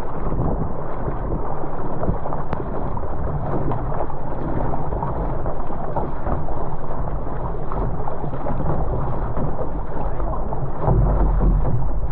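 Wind buffeting the microphone in the rain, a steady low rumble with a rushing hiss over it.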